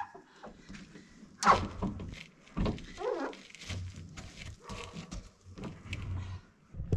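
Scattered knocks and bumps against a pickup truck's body as someone climbs its side to reach the roof, with a few short grunt-like vocal sounds. The sharpest knock comes about a second and a half in.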